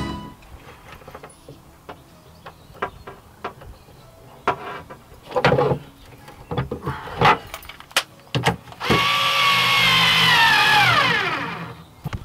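Scattered light clicks and knocks of a cable lug and terminal bolt being handled. Then, about nine seconds in, a cordless drill-driver runs for about two seconds, driving down the inverter's DC terminal bolt. Its motor whine drops in pitch as it slows to a stop.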